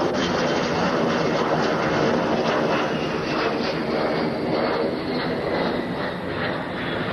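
Engine noise of a twin-boom display aircraft flying past overhead: a loud, steady drone with many held tones, taking on a regular pulsing in its upper range midway and easing slightly near the end.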